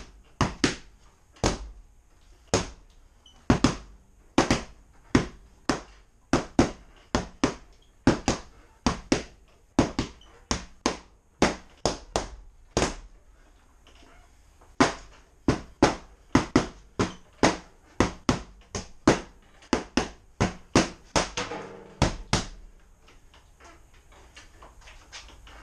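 Training baton strikes landing on a target: a long run of sharp cracks, about two to three a second and often in quick pairs, that stops about 22 seconds in.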